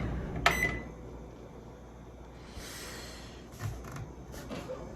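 Microwave oven's running hum cutting off, then a sharp click with a brief ring about half a second in, followed by low room tone with a few faint clicks and handling noises.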